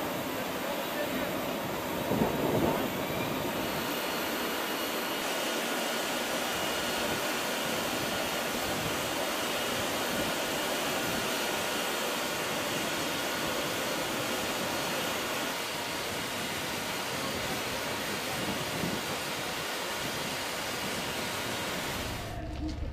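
Jet engine running on a flight line: a steady, even rushing noise with a faint high whine, and a brief louder swell about two seconds in.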